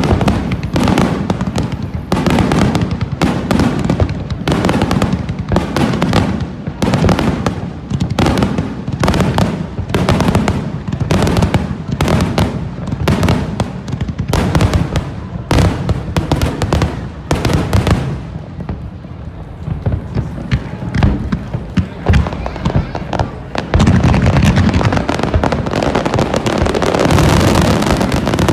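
Aerial fireworks barrage: rapid loud bangs, several a second, thinning out after about 18 seconds, then a dense continuous crackle and rumble over the last few seconds.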